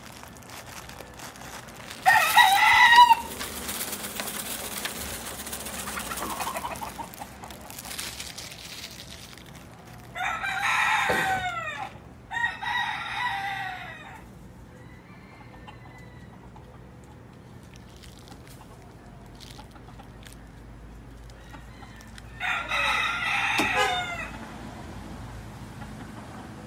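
Roosters crowing: four crows spread through the span, the first, about two seconds in, the loudest.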